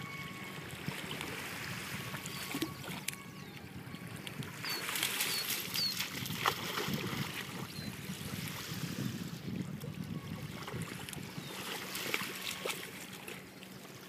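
Water sloshing with light splashes as a boxer dog wades and paddles through calm shallow water near the shore, with scattered small splashes.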